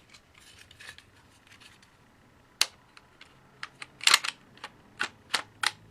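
Metal parts of a GSG-522 .22 rifle clicking as the lower receiver's hammer is slid into the slot in the bottom of the bolt: faint handling rustle, then a sharp click about two and a half seconds in and a string of quick clicks and taps near the end.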